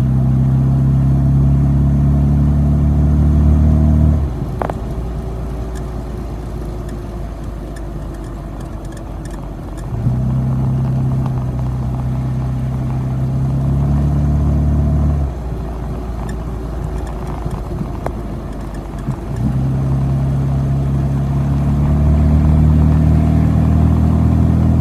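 Rover Mini's A-series four-cylinder engine held three times at a steady raised speed, dropping back to a quieter, rougher running in between. A short rising squeak sounds about five seconds in, the kind of abnormal 'kyu-kyu' noise being chased on this car.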